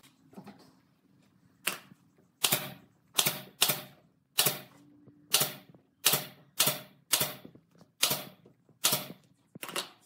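Pneumatic nail gun firing nails into pine boards: about a dozen sharp shots, roughly half a second to a second apart, starting a couple of seconds in.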